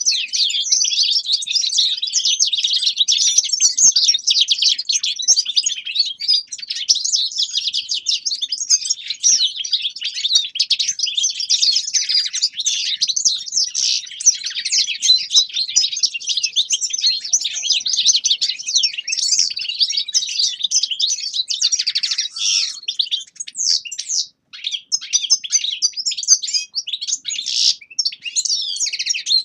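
Caged finches, European goldfinches and Eurasian siskins among them, twittering and singing over one another in a dense, unbroken chorus of quick high chirps and trills.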